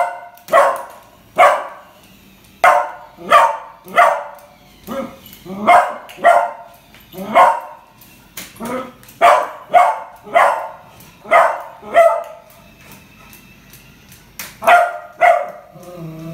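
Beagle puppy barking repeatedly, about one bark a second, at a plush puppy toy that has scared it. The barks stop for a couple of seconds, then two more come near the end.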